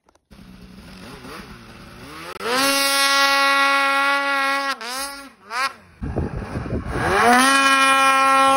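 Snowmobile engine revving hard as the sled ploughs through deep snow: it climbs to high revs and holds there, drops off briefly about halfway with a couple of quick blips, then climbs and holds high again near the end.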